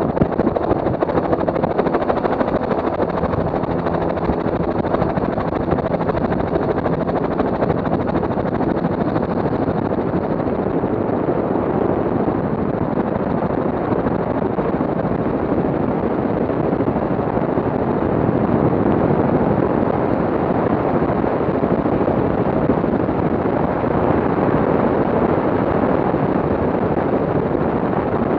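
Helicopter in flight, its rotor and engine making a steady, unbroken noise as heard from a camera carried on board.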